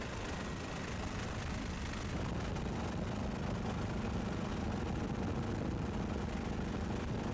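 Steady engine and rotor noise of a helicopter, heard from aboard it, with a low hum that grows a little stronger about two seconds in.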